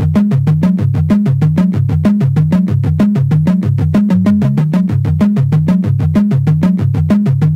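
Background electronic music: a synthesizer bass line of quick, evenly spaced notes stepping between a few low pitches.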